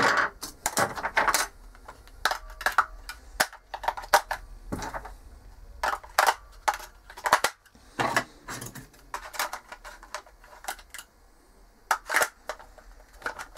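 Plastic clicks and knocks from the WLtoys L969's pistol-grip remote control being handled as AA batteries are fitted into its battery compartment: irregular sharp clicks with short pauses between.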